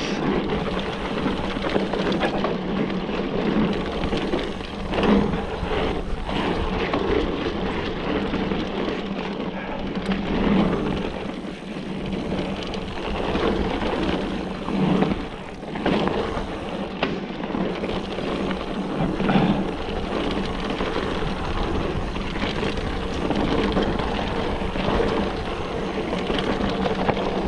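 Orbea Laufey hardtail mountain bike riding fast down a dry dirt singletrack. Tyres rumble over the ground and wind rushes steadily past the handlebar-mounted camera, with the bike rattling and knocking loudly over bumps several times.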